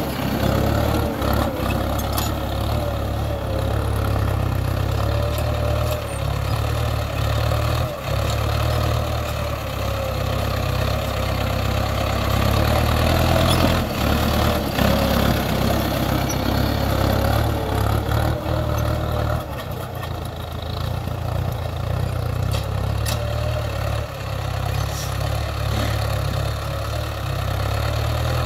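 Mahindra Arjun 605 DI tractor's diesel engine running steadily as it pulls a tine cultivator through the soil.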